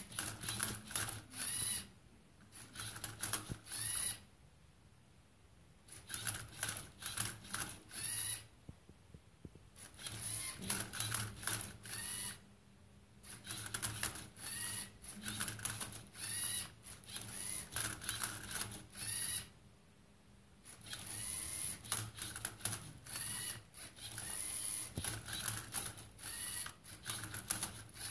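LEGO Mindstorms EV3 MindCub3r robot turning and flipping a Rubik's cube: the servo motors whir and the plastic gears, arms and cube click. The sound comes in bursts a few seconds long with short pauses between them.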